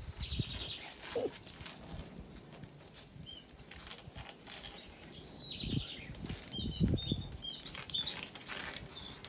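Cloth towel rustling and rubbing as a six-banded armadillo is dried by hand, with a couple of soft thumps midway. Short high bird chirps sound now and then in the background.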